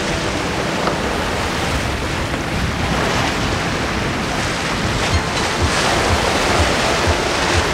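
Waves and strong wind at sea around a sailing yacht under way, a steady rushing noise with wind buffeting the microphone in gusts through the second half.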